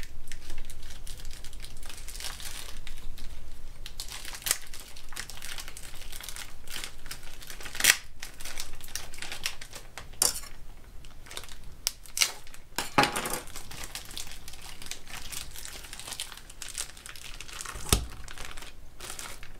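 Plastic packaging crinkling and tearing as it is cut open and peeled off a block of ground beef, with a few sharp knocks along the way.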